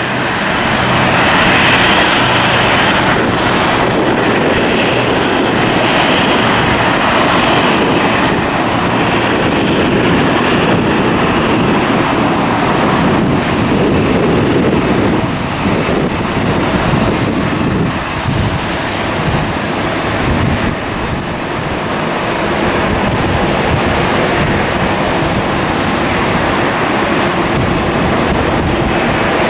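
Jet engine noise from a Boeing 737-700's CFM56-7B turbofans as the airliner passes: a loud, steady rush that peaks about two seconds in, with gusty wind buffeting the microphone underneath.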